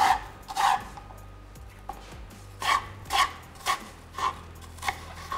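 Kitchen knife chopping apple into matchstick strips on a wooden cutting board: about eight short chops, roughly two a second, with a pause of about a second and a half after the first two.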